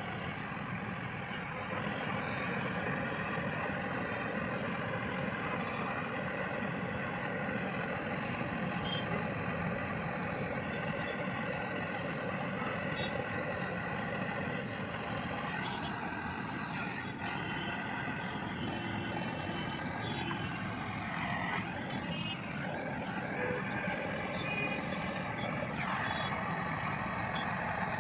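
Twin-tip gas brazing torch burning steadily on the copper pipe joints of an air conditioner condenser coil: a continuous roar with steady tones running through it that shift in pitch a few times.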